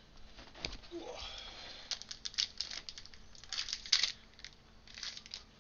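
Crinkling and rustling of a foil trading-card booster pack wrapper being handled, in short irregular spurts, loudest about four seconds in.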